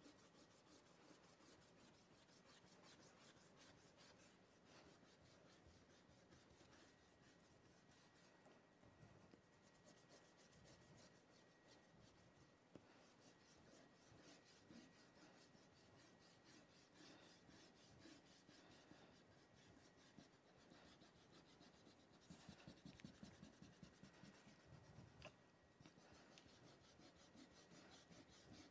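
Faint scratching of chalk on a black drawing board in quick, short, repeated strokes, as feathery lines are sketched. It grows louder for a few seconds near the end.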